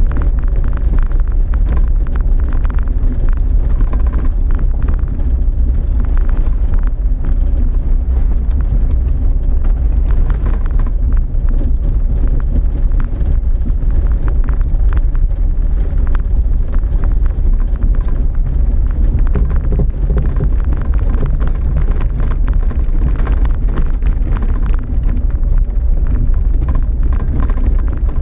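Off-road vehicle driving along a gravel dirt track: a steady low rumble of engine and drivetrain, with tyres crunching over stones and many small irregular knocks and rattles from the bumpy ground.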